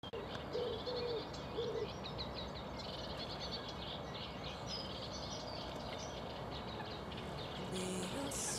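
Outdoor birdsong: many quick high chirps through the first half, with three short, lower calls in the first two seconds, over a steady background hiss of ambient noise.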